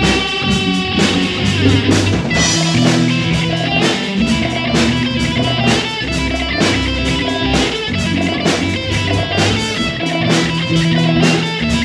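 Rock music: guitar playing over a drum kit keeping a steady beat.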